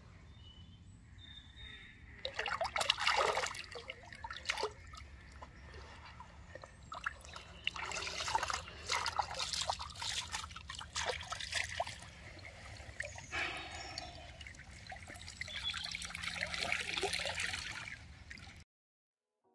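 Shallow lake water splashing and sloshing in irregular bursts as a large carp is released by hand from a floating retention sling and swims off. The sound cuts off suddenly near the end.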